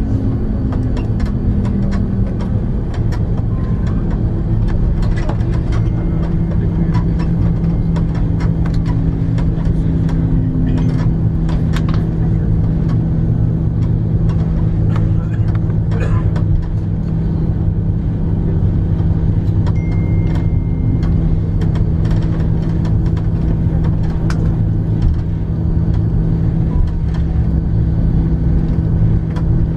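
Cabin noise of an Airbus A340-300 taxiing: a steady low hum from its CFM56 engines at idle. A tone falls in pitch in the first two seconds, and small clicks and rattles come and go throughout.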